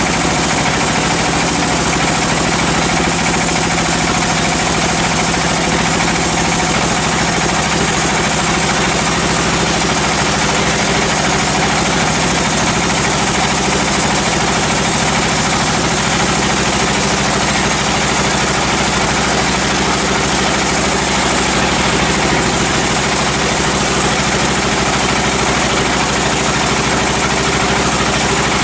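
Sawmill machinery running steadily: a loud, continuous mechanical drone with a low hum.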